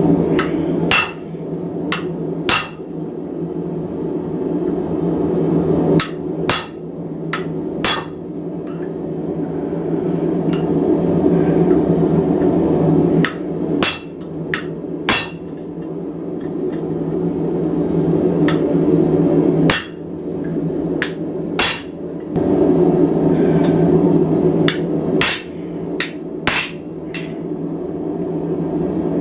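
Hammer driving a chisel into hot steel over a sacrificial steel block, in sharp strikes that come in groups of two to four with pauses between, splitting the end of the bar into two tines. A steady rushing noise runs beneath.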